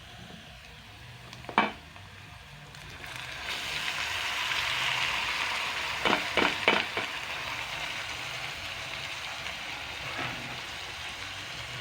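Diced tomatoes frying in a hot pan with green capsicum and garlic: the sizzle swells about three and a half seconds in, then settles into a steady hiss. A sharp knock near the start and a quick run of knocks midway, like a utensil against the pan.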